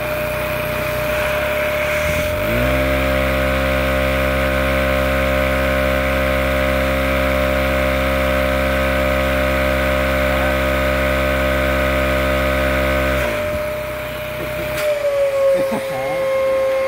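A vacuum cleaner runs with a steady whine throughout. From about two and a half seconds in, the LEGO vacuum engine it drives runs up to a steady speed with a loud, even buzzing hum, turning the generator that lights an incandescent bulb, then stops about thirteen seconds in. A few handling knocks follow, and the vacuum's whine drops slightly in pitch.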